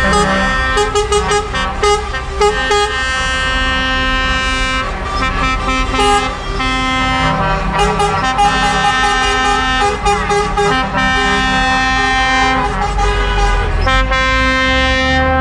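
Truck air horns sounding long, held blasts one after another as a convoy of lorry tractor units drives past, over the low running of their engines.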